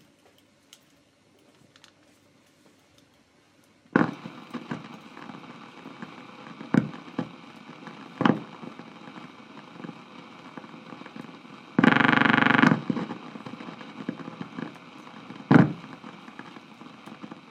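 Old film soundtrack played back on a Steenbeck flatbed editor: near silence for about four seconds, then a steady hiss with crackle and several loud pops, and a loud buzz lasting about a second a little past the middle.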